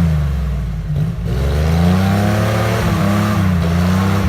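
Off-road vehicle's engine revving under load, its pitch rising and falling several times as the throttle is worked.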